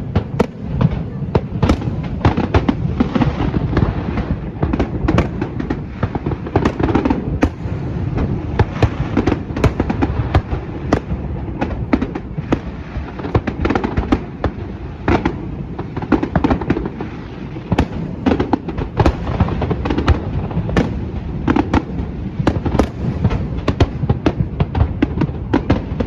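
Fireworks display going off continuously: a rapid, irregular string of sharp bangs and pops, several a second, over a steady low rumble of distant bursts.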